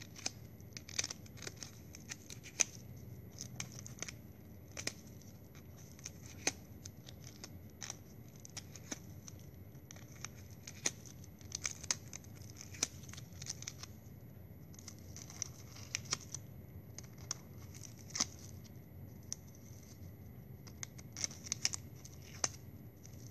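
Plastic drinking straws being handled and fitted together, making irregular small clicks, snips and scratchy rustles.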